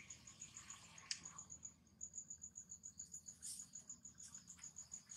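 Faint insect chirping: a steady high-pitched pulse repeating about eight times a second. A single short click about a second in.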